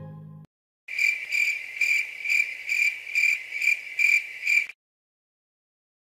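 Cricket chirping: a high, even chirp repeated about twice a second for nearly four seconds, then cut off suddenly.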